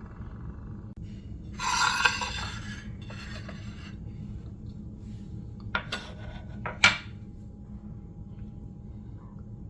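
A metal spoon scraping in a bowl while cucumber pulp is collected: two scrapes about two and three and a half seconds in, the first the loudest, then a few sharp clinks of the spoon against the bowl around six to seven seconds, over a steady low hum.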